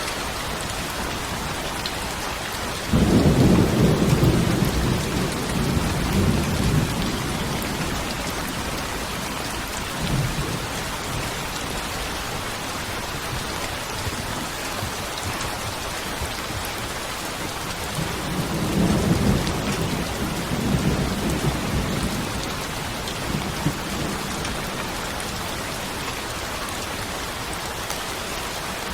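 Steady rain falling, with thunder. A sudden thunderclap about three seconds in rumbles on for several seconds, a brief rumble follows a little later, and a longer rolling rumble comes past the middle.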